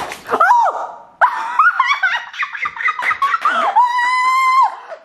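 A sharp puff of breath, then excited laughing and high-pitched shrieks from a man, with one long held whoop near the end.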